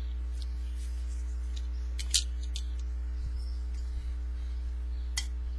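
Steady low electrical hum with a few short sharp clicks as a caulking gun and its tube are handled, the loudest click about two seconds in and another near the end.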